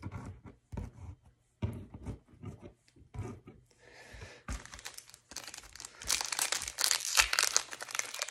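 A few short knocks and rustles of cards being handled, then about five seconds in a trading-card pack's wrapper is crinkled and torn open with a dense crackle.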